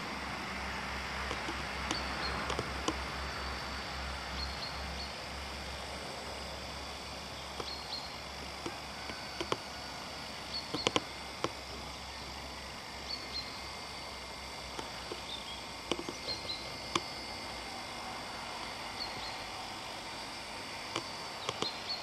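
Open-field ambience: a faint low drone from a distant John Deere 6910 tractor at work, with short high bird chirps every few seconds and a few sharp clicks.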